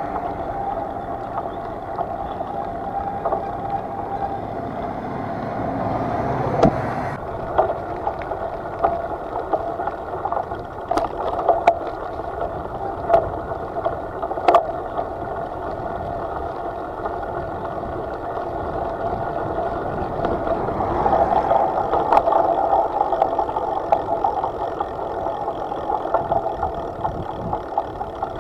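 Steady rushing of wind and tyre noise from riding a bicycle, with scattered light clicks.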